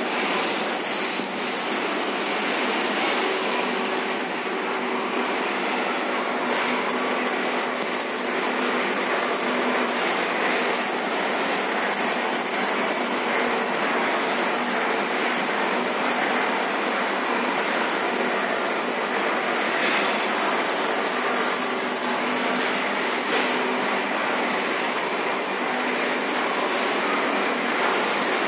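Rice chip production line running: a vibratory conveyor and a rotating drum carrying dry rice chips, giving a steady mechanical rattle and rush with a faint hum under it.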